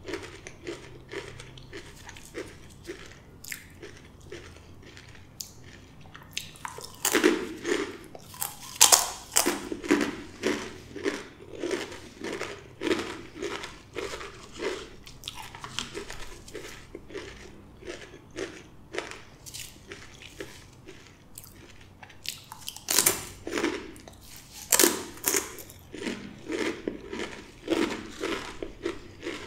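Close-miked crunching and chewing of blue Takis rolled tortilla chips. Two bouts of loud, sharp crunches come about seven seconds in and again about twenty-three seconds in, with quieter chewing between them.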